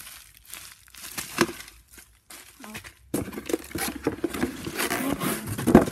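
Bubble wrap and cardboard rustling and crinkling as wrapped items are pulled out of a shipping box. The rustling is sparse at first and busier from about three seconds in, with a sharp knock near the end.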